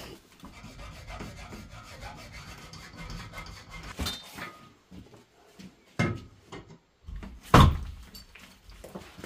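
Rotten timber wall being worked with a hand tool to pull out a stuck nail: wood scraping and rasping, with a few sharp knocks, the loudest about three-quarters of the way through.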